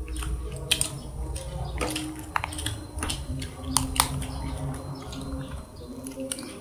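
About five sharp crisp clicks and cracks, spread a second or so apart, from firm guava fruit being broken and eaten, over a low rumble of handling noise.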